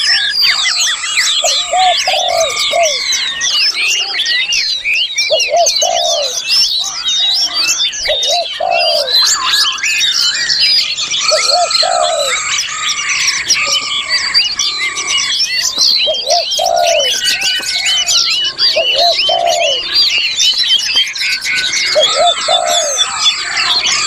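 Many songbirds singing at once: a dense, unbroken tangle of quick high chirps, trills and whistles, with a lower call repeating every second or two underneath.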